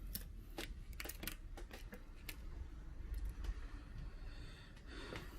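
Scattered small clicks and crackles of a cracked laptop touchscreen digitizer being pried loose from its bezel.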